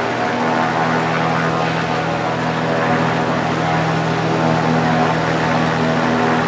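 A Cessna 310Q's left six-cylinder piston engine and propeller running steadily at about 1600 RPM during a ground run-up, heard from inside the cockpit.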